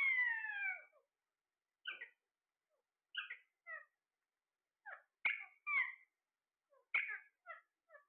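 Caged Alexandrine parakeets calling. One long call falls in pitch at the start, then short call notes come in little clusters about every second.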